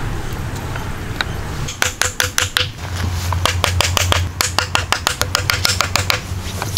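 Small hatchet tapping debarked wooden logs in quick succession, about five sharp knocks a second, to seat them in a log frame. A low steady hum sits underneath.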